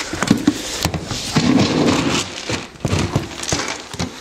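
Irregular rustling, knocks and crackles of things being handled, with a handheld camera being moved about.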